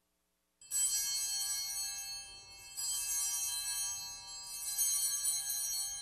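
Altar bells (Sanctus bells) rung three times, about two seconds apart, each ring a bright jangle of several high tones that slowly fades. They mark the elevation of the consecrated host at Mass.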